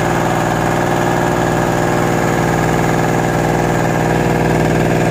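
Vigotech GG950DC-Plus small portable petrol generator running steadily at an even speed.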